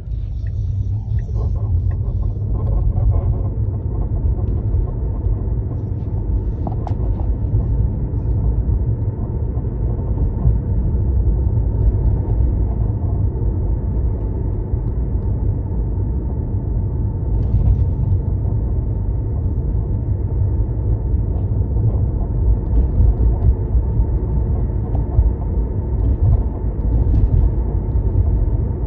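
Steady low rumble of a Tesla on the move, heard from inside the car, with a faint steady hum above it and a few faint short ticks scattered through.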